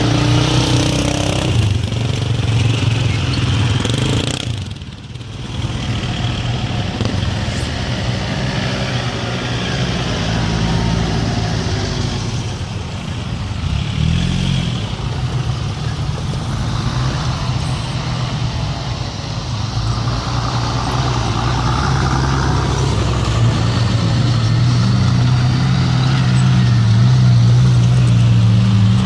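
Engines of off-road 4x4 vehicles in a convoy, driving past one after another. The engine tone briefly drops about five seconds in and gets louder near the end.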